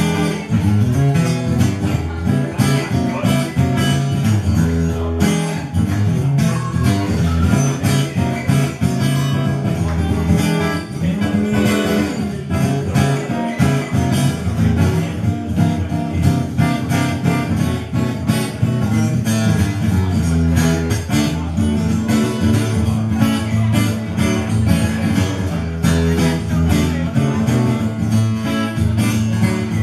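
Steel-string acoustic guitar strummed in a steady rhythm, an instrumental passage with no singing.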